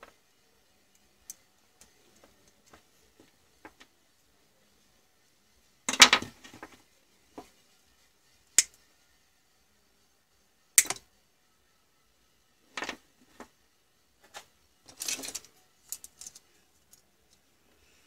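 Side-cutter pliers snipping into a fabric-covered hair-dryer power cable, with small clicks of tools and wire being handled in between; a handful of sharp snaps, the loudest about six and eleven seconds in.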